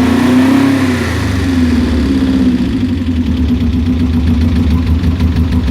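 Subaru Impreza GC8's flat-four boxer engine idling roughly with a misfire. Its revs waver up and down for the first couple of seconds, then settle into an uneven, lumpy idle.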